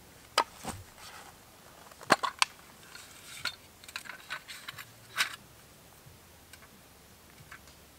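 A small hinged metal tin being handled: set down on a log, its lid opened and its contents moved about, giving a string of sharp clicks and clinks that thin out to a few faint ticks near the end.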